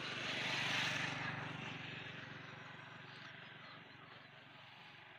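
A motor vehicle passing by, engine hum and tyre noise rising to a peak about a second in and then slowly fading away.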